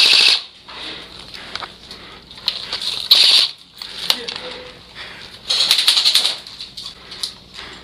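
Airsoft guns firing in three short bursts of rapid clicking shots: one right at the start, one about three seconds in, and a longer one a little over five seconds in.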